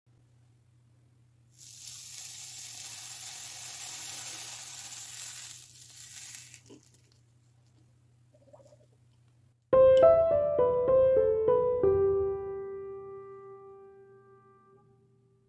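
Soft hiss for about four seconds, then piano music that comes in suddenly about two-thirds of the way through: a quick run of notes ending on a long note that fades away.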